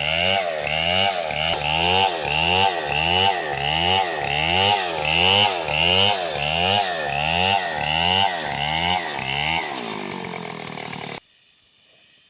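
Two-stroke chainsaw engine revving up and down in a steady rhythm, about three revs every two seconds. Near the end it winds down and then cuts off suddenly.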